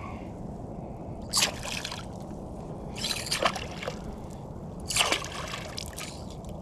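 Hooked redfish (red drum) thrashing at the water's surface: three splashes roughly a second and a half apart, over steady lapping water.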